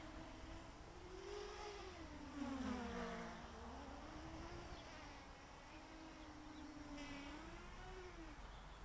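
Morphite 180 mini quadcopter's brushless motors and propellers buzzing in flight, the pitch rising and falling again and again as the throttle changes.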